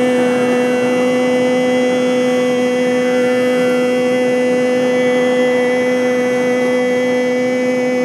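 A male Carnatic singer holds one long, steady note over the drone of a tambura, with the wash of ocean waves underneath.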